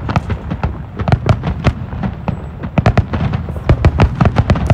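Fireworks going off: a rapid, irregular run of sharp bangs and cracks, growing denser about three seconds in.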